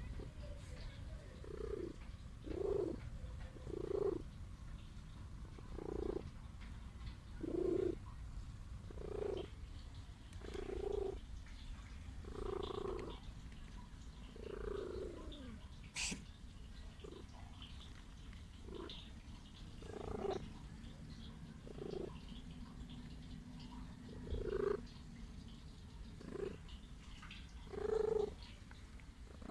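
A sick stray cat purring close up, with a short louder pulse about every one to two seconds over the steady purr. One sharp click comes about halfway through.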